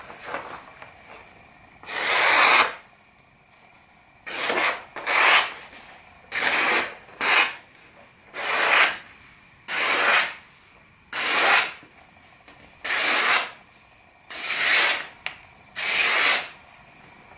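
Knife blade slicing through thin magazine paper, about a dozen separate rasping strokes, each lasting about half a second. This is a paper-slicing sharpness test of a Maxace Amber 2S folder with a CPM S90V blade, still holding a sharp edge without resharpening.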